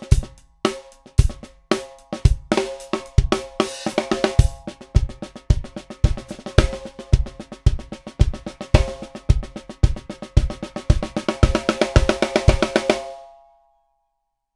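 Drum kit played around a Ludwig Supralite 14"x5.5" beaded steel snare: a steady bass drum beat about twice a second under sharp, ringing snare strokes. The playing grows busier into a fast roll and stops abruptly about 13 seconds in, leaving a brief ring.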